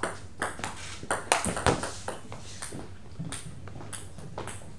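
Table tennis ball clicking off bats and table during a rally: a quick run of sharp taps in the first two seconds, then a few scattered ones.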